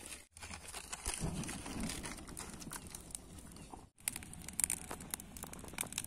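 Bonfire of sticks and paper kindling catching and crackling, with many short sharp snaps in the second half. The sound breaks off briefly twice.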